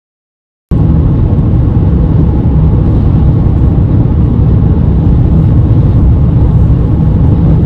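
Steady low road and engine rumble inside the cabin of a 2021 VW T6.1 Transporter camper van on the move. It begins abruptly less than a second in and stays level.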